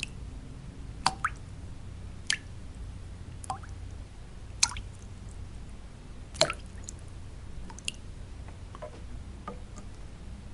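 Water drops falling one at a time at irregular gaps, about one a second, each a short plink that slides up in pitch, over a steady low white-noise bed.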